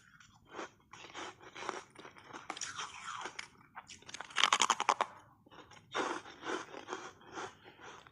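Button-shaped ice coated in matcha powder being bitten and chewed close to the microphone: a series of crunches, the loudest a rapid crackling crunch about halfway through.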